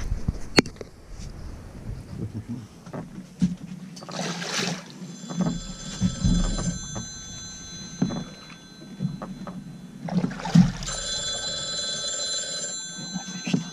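A phone ringtone rings in two spells, about five seconds in and again about eleven seconds in, as a set of steady electronic tones. Knocks and handling noise on a boat deck lie underneath.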